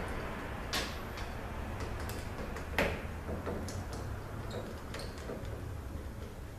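Scattered small metal clicks and taps of parts being handled and fitted during valve body reassembly: a couple of sharper knocks about one and three seconds in, lighter ticks after. A steady low hum runs underneath.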